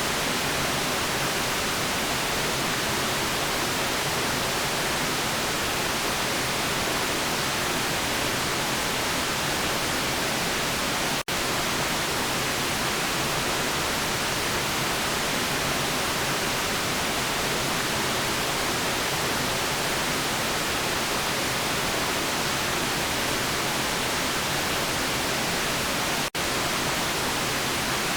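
Steady white noise: an even, unbroken hiss, bright in the highs. It cuts out for a split second twice, about 11 and 26 seconds in.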